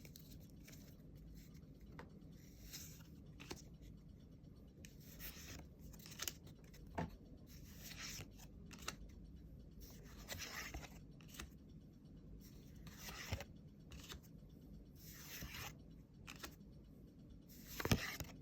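A trading-card booster pack being opened and its cards handled: soft rustling, sliding and scraping of card stock and wrapper in short, irregular bursts, with a few sharper clicks.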